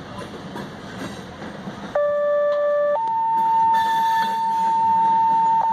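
Loaded grain hopper cars rumble through the crossing. About two seconds in, an ambulance horn starts a long, loud, steady blast. It begins as a buzzy tone and jumps to a higher, purer tone about a second later.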